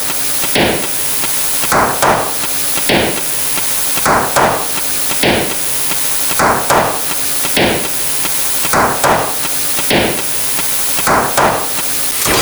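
Hammer-striking sound effect repeating in a loop, falling in a pattern of two quick strikes then one, over a steady hiss.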